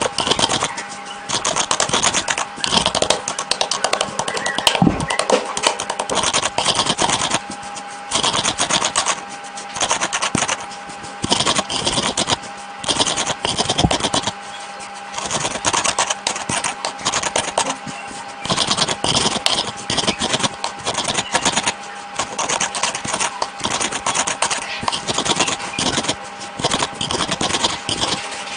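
Dry khadi mitti (chalk clay) chunks crumbling with a dense crackle, in bursts of one to three seconds separated by short pauses.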